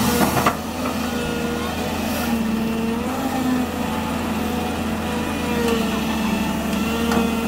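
Volvo excavator's diesel engine running steadily, its pitch dipping and recovering every second or two as the hydraulics take load. A few sharp knocks come about the start and another near the end.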